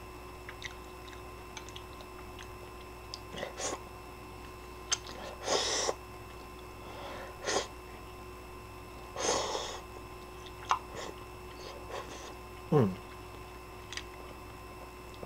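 Ramen noodles slurped from a bowl in two main hissing slurps, about five and nine seconds in, with chewing and small scattered clicks between them. Near the end there is a short falling vocal sound.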